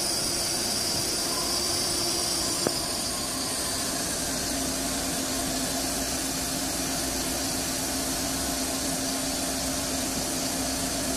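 Doosan CNC lathe running a machining cycle with the door closed: coolant spray hissing against the guarding and a steady spindle hum. The hum drops to a lower pitch about four seconds in, and there is one short click a little before that.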